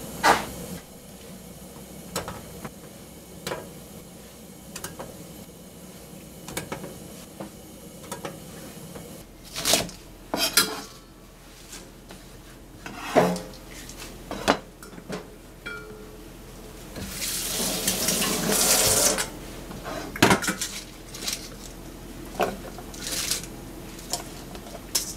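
Kitchen clatter: a metal pot lid clanks as it is lifted off the pot, then scattered clinks and knocks of stainless-steel bowls, a colander and a food-processor bowl being handled. About two-thirds of the way in, a tap runs for roughly two seconds.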